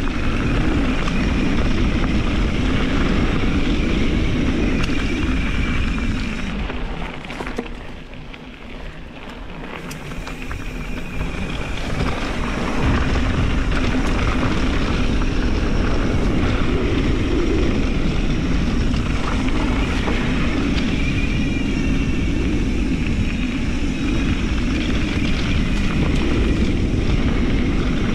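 Mountain bike riding a loose gravel dirt trail: wind rushing over the microphone, knobby Michelin tyres crunching and rumbling over the dirt, and the bike rattling. It grows quieter for a few seconds about a quarter of the way in, then picks up again.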